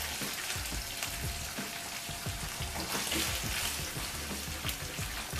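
Tuna, garlic and tomato sauce frying in oil in a pan: a steady crackling sizzle.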